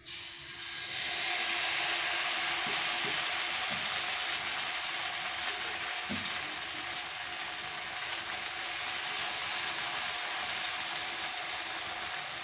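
Dosa batter sizzling on a hot, oiled iron tawa: a steady hiss that builds over the first second, with a few soft knocks.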